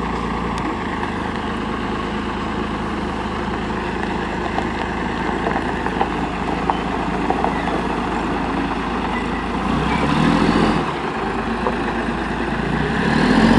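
The diesel engine of a 1986 Peterbilt 310 front-load garbage truck running as the truck creeps forward. The sound gets louder for about a second, ten seconds in, and again near the end.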